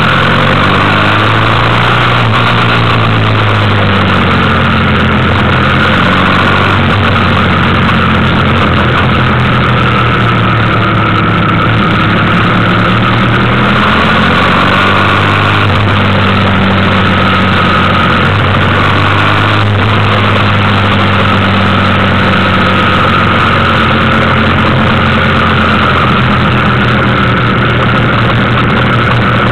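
Motorcycle engine running under way, its pitch rising and falling as the revs change through the bends, over a steady rushing noise.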